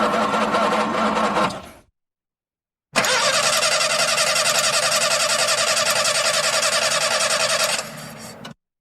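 Car engine cranking on its starter without firing, with a rapid even pulsing. One attempt winds down about two seconds in, and after a pause of about a second a second crank of about five seconds also dies away near the end without the engine catching.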